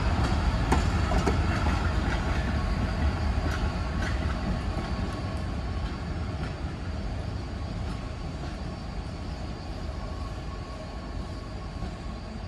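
Freight cars and caboose rolling past on the track: a low rumble of wheels with scattered clicks over the rail joints, fading steadily as the train moves away.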